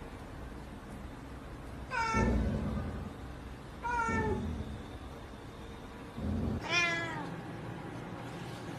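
A cat meowing three times, each meow a drawn-out call that falls in pitch.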